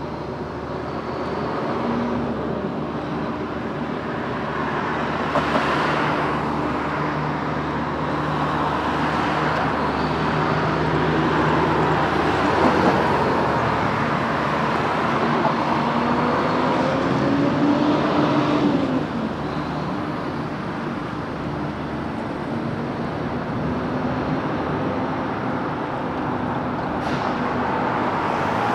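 City street traffic: road vehicles running and passing. Past the middle, one engine note rises and then falls in pitch over a few seconds.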